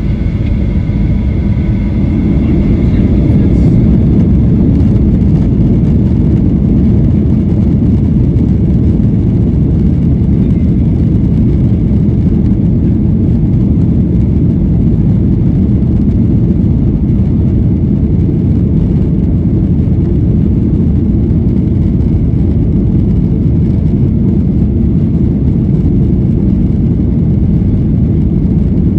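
Boeing 737-900ER cabin noise from a window seat: a loud, steady engine and airflow rumble from its CFM56-7B turbofans. A high whine fades out in the first few seconds as the rumble grows a little louder, then holds steady.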